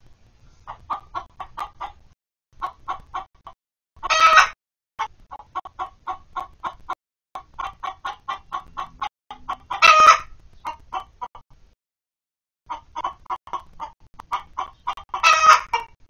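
Hens cackling: runs of quick clucks, about five a second, each run ending in a loud squawk. This happens three times, about five to six seconds apart.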